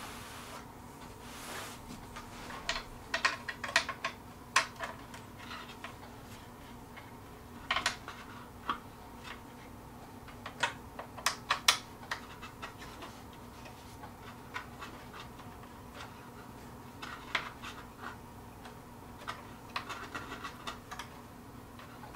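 Bolts being tightened into a wooden table frame by hand: irregular clicks and scrapes of the tool and metal parts, in short clusters with pauses between.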